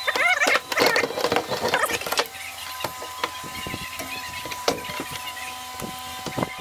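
Squeaking and clattering for about the first two seconds, then scattered sharp metallic clicks, as parts of an ATV's front driveshaft and its new U-joints are handled and fitted by hand.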